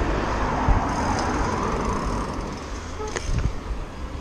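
Road traffic: a passing vehicle whose noise swells and fades over about two seconds, with a few sharp clicks near the end.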